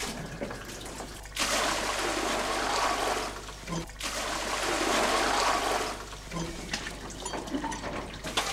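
Well water poured from a bucket into a shallow stone trough, splashing loudly for several seconds with a brief break in the middle. Quieter knocks of the bucket and rope come before and after.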